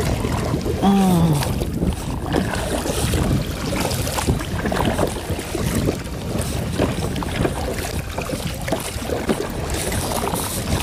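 Wind buffeting an action camera's microphone and water lapping against a kayak's hull, with irregular small knocks. About a second in there is a short falling vocal sound.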